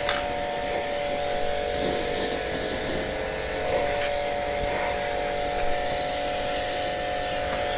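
Electric pressure washer running steadily, its motor humming under the hiss of the water jet spraying onto a scooter wheel.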